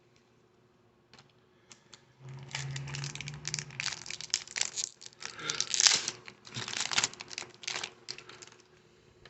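Crinkling of a trading-card pack wrapper being handled, beginning about two seconds in and lasting some six seconds as a dense crackle, after a few faint clicks.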